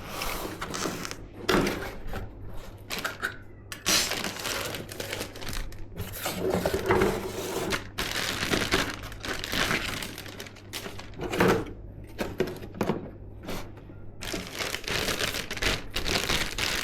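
Hands handling PC parts and their packaging: irregular rustling and crinkling with short knocks and clicks, over a steady low hum.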